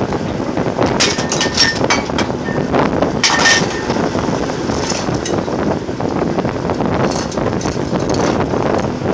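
Drilling rig floor machinery running with a loud, steady rumble, broken by clusters of sharp metal clanks and clinks of pipe and tongs, the loudest a little past three seconds in and more near the end.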